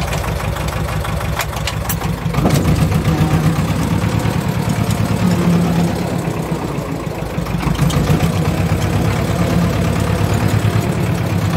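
Ursus C-330 tractor's two-cylinder diesel engine running, heard from inside the cab. It gets louder a couple of seconds in, eases off around the middle, and picks up again about two-thirds of the way through.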